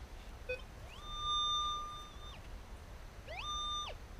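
Metal detector sounding its target tone as the coil passes over buried metal: a long held electronic beep that slides up at the start and down at the end, about a second in, then a shorter one near the end. The signal shows the target is still in the ground.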